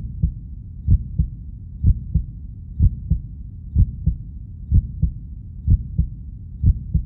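Heartbeat sound effect: deep double thumps, a lub-dub repeating about once a second, over a steady low rumble.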